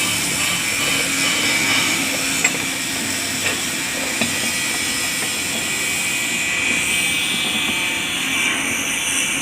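Steady mechanical hiss and whirr of workshop noise, with three light sharp taps about two and a half, three and a half and four seconds in.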